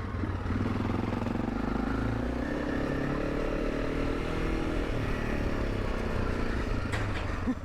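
Honda CRF300 Rally's single-cylinder engine running under way on its freshly rebuilt motor, the revs rising over the first few seconds, holding, then easing off.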